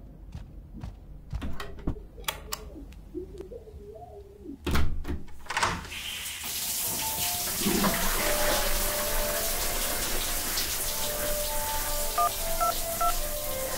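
Faint knocks and muffled sounds, then a heavy thud about five seconds in. From about six seconds, a shower runs steadily, water spraying onto a tiled floor. Near the end, a few phone keypad beeps sound over the running water.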